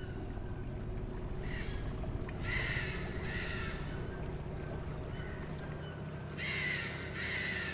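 Wild animal calls in a rainforest: harsh, repeated calls in two groups, one about two to three seconds in and another near the end, over a steady low background.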